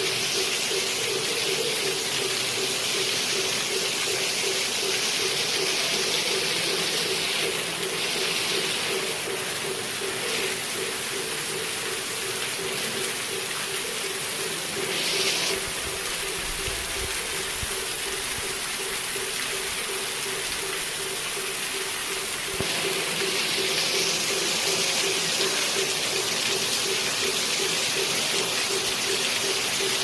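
Heavy rain falling and streaming off the tiled eaves of a temple roof, a steady loud hiss, with a rapid, evenly pulsing hum underneath.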